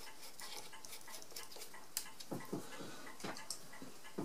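Screwdriver turning a small screw into the metal body of a mechanical calculator, securing the carriage retaining bar: faint irregular ticks and scrapes, with a few sharper metal clicks in the second half.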